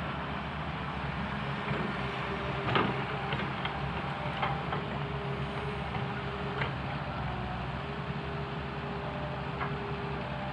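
CAT MS180 excavator's engine running steadily with a low drone, while a higher tone comes and goes. Scattered knocks and clanks sound from the working machine, the loudest about three seconds in.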